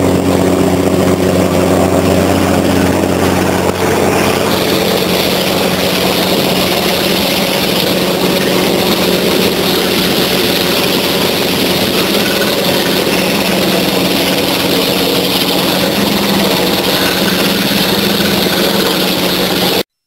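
A water-well drilling rig's engine running steadily, under a loud rush of water and foam blowing out of the borehole casing; the rushing grows louder about four seconds in. The sound cuts off suddenly just before the end.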